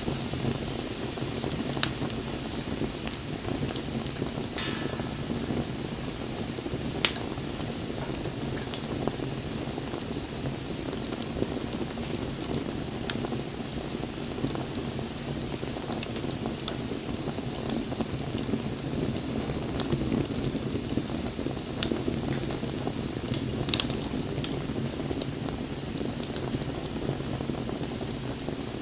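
Wood bonfire burning: a steady rushing flame noise with sharp crackles and pops of burning wood. The loudest pop comes about seven seconds in, and a few more follow near the end.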